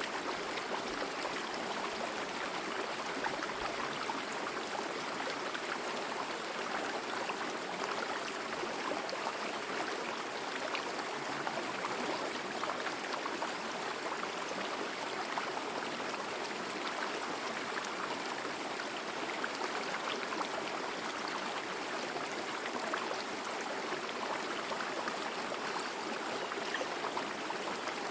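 Mountain forest stream flowing: a steady, unbroken rush of water.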